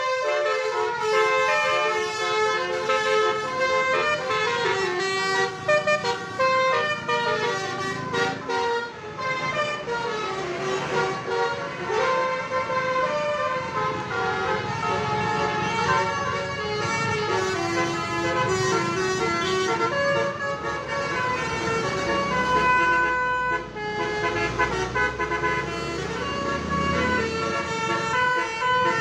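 A bus's multi-tone 'telolet' basuri horn playing a tune, one honking note quickly following another, over a low rumble.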